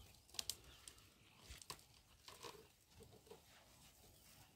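Faint waterhole ambience near silence. A few quiet splashes or clicks come about half a second in and again near the middle, and short soft bird chirps follow.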